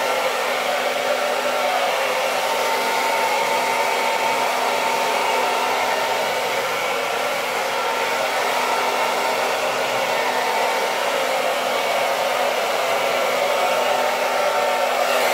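Handheld hair dryer blowing steadily: a loud, even rush of air with a steady hum from its motor.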